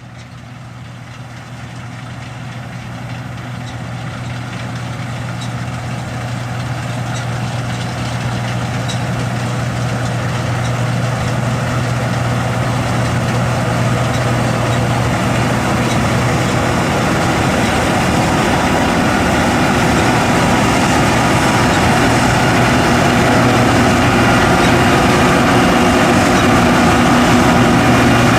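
John Deere S550 combine running in the field, its diesel engine's steady low hum under the broad mechanical noise of the harvesting machinery, growing steadily louder throughout.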